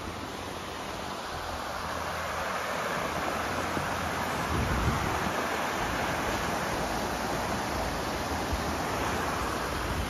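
Swollen, muddy river rushing over rocky rapids: a steady hiss of white water that grows louder toward the middle.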